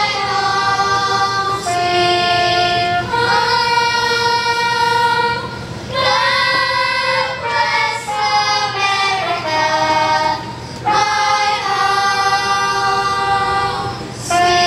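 Children's choir singing in unison in long held phrases, with a short breath between phrases every few seconds.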